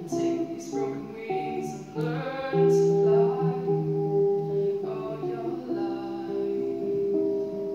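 A young woman singing solo into a microphone, accompanying herself on an amplified guitar, with some notes held long.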